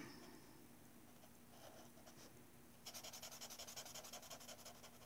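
Faint, rapid scratching of a felt-tip pen colouring in on paper, quick back-and-forth strokes that thin out for a couple of seconds and pick up again about three seconds in.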